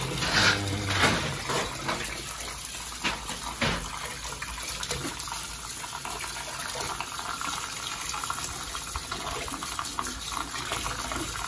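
Tap water running steadily into a stainless steel sink as lettuce leaves are rinsed and rubbed under the stream, with a few sharper splashes in the first four seconds.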